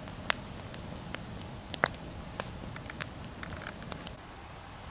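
Split firewood burning in an open brick-ringed fire pit, crackling with sharp, irregular pops, a few of them louder than the rest.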